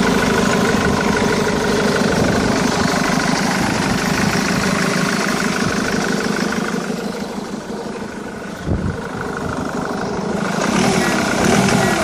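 Ford Mondeo Mk3 engine running at idle. It weakens a little after the middle, with a brief knock about nine seconds in. Near the end the revs rise and fall twice in small blips: an engine that will only take a tiny bit of revs before it threatens to die.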